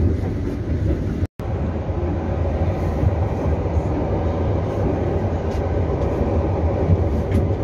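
Steady rumble of an EP2D electric multiple unit running at speed, heard from inside the carriage, with wheel and track noise. The sound drops out for an instant about a second in.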